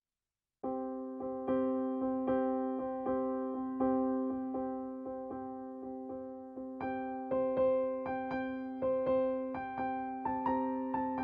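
Background keyboard music: struck notes on a steady pulse, roughly one every three-quarters of a second, each fading away. It starts after about half a second of dead silence and grows busier, with higher notes, about seven seconds in.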